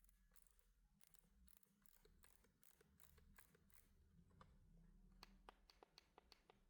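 Faint, irregular clicking from the Epomaker RT100 keyboard's volume control knob being turned, several clicks a second, coming thicker near the end.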